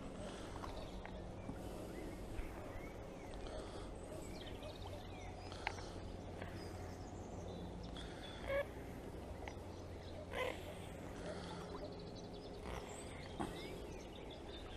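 Outdoor ambience: a steady low rumble of wind on the microphone, with scattered short bird calls over it.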